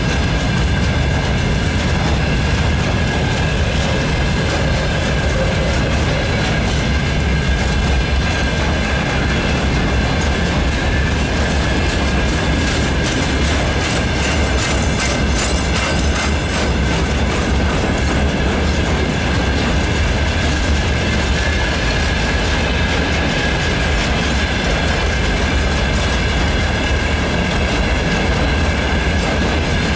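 Freight train of open gondola wagons rolling steadily past: a heavy low rumble with wheels clattering over rail joints, and a steady high-pitched squeal running through it.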